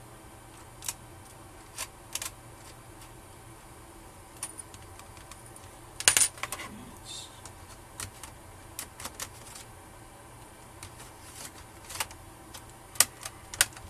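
Small metal screws and a screwdriver clicking and tapping against the plastic bottom case of a Dell Inspiron N5110 laptop as the screws go back in. The taps are irregular, with a loud cluster about six seconds in and a few sharp clicks near the end.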